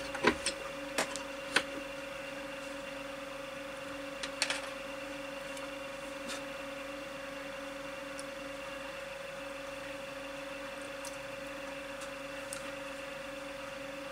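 Steady electrical hum, one even mid-pitched tone over a fainter lower one. A few small clicks from handling the small watch parts come in the first two seconds and again about four and a half seconds in.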